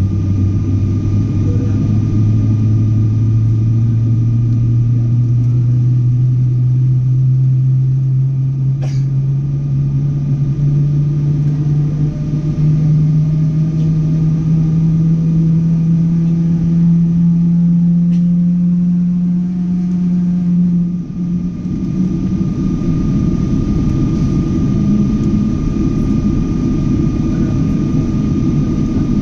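Boeing 777 jet engines at takeoff power over a heavy rumble, with a tone that climbs slowly and steadily in pitch as the plane accelerates. About 21 seconds in the rising tone stops abruptly and a steady rumble carries on.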